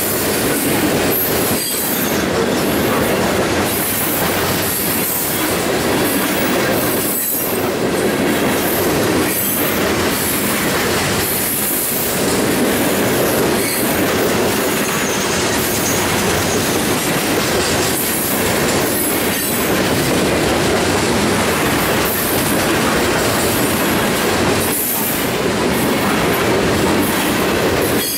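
Freight train of ore hopper cars rolling past at close range: a steady rumble of steel wheels on rail, broken by irregular clacks as wheels cross the rail joints.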